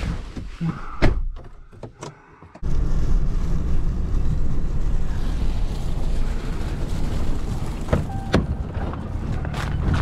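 A pickup truck door thunks shut about a second in. After a short lull, the Ram pickup's steady low engine and driving rumble starts abruptly and runs on as the truck moves across the field.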